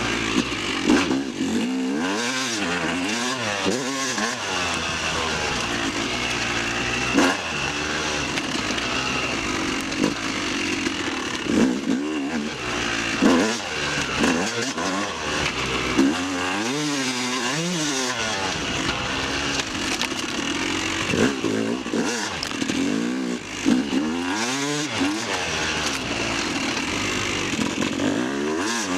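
Yamaha YZ250 two-stroke dirt bike engine being ridden, its pitch rising and falling over and over as the throttle is opened and closed.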